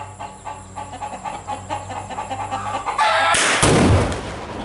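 Sudden loud blast of a large exploding rifle target, about six pounds packed into a tree stump, set off by a .22 round about three seconds in. A deep rumble rolls on for about a second after it.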